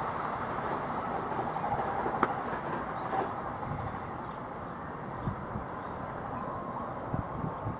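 Passenger train running along the track, a steady rail rumble slowly fading.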